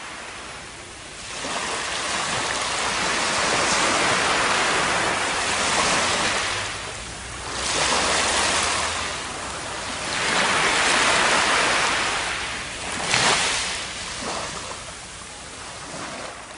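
Small waves washing up a sandy beach and drawing back, the surf swelling and fading several times, with one sharper splash late on.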